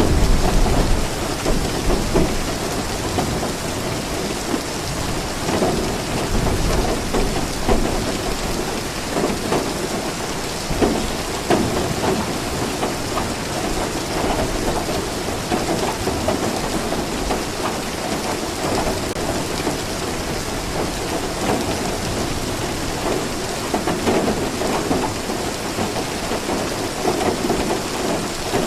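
Steady rain falling, with low rumbles of thunder, strongest around the start.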